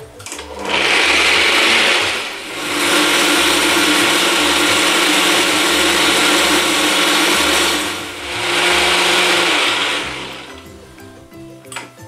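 Countertop blender running at speed, pureeing chopped tomatoes, almonds, garlic, basil and cheese into a smooth sauce. The motor runs in three long spells, easing briefly twice between them, then dies away near the end.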